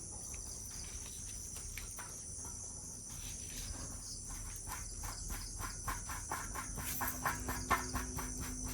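Insects, crickets by their sound, chirping steadily in the background. From about halfway through, a run of quick clicks, several a second, comes on top and grows louder near the end.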